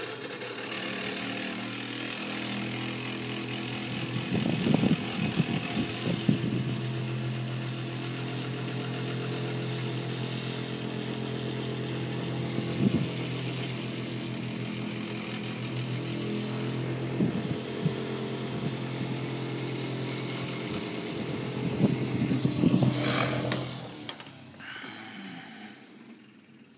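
An 8-inch Polar Cub oscillating table fan running, not exactly whisper quiet: a steady motor hum with rattles and knocks every few seconds as the vibrating fan shifts about on its base. About 23 seconds in the power is cut and the motor runs down to quiet.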